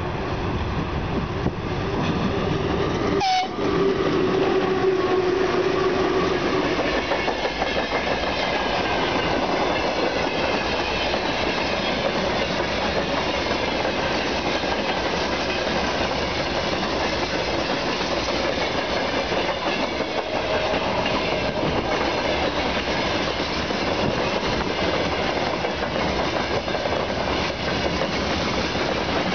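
A VL11 electric locomotive sounds one horn blast of about three seconds, a few seconds in, as a greeting from the crew. Then its freight train's wagons roll past close by, with a steady noise of wheels on rails.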